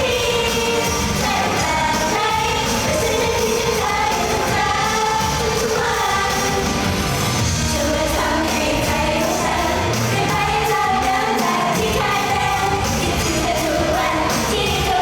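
Live pop stage performance: a woman singing over loud, steady pop backing music.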